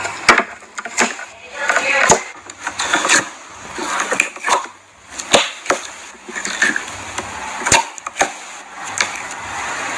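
Clear slime being worked by hand, giving sharp, irregular pops, roughly one a second, between softer crackling squishes.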